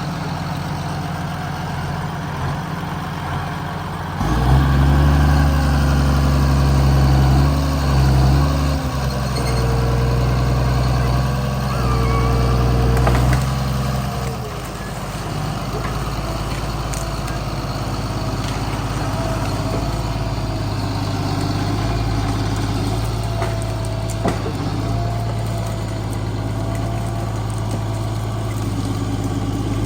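Diesel engine of a heavy logging machine running steadily, then revving up under load about four seconds in. It holds the revs, with the pitch shifting, for about ten seconds, then drops back to a steady idle.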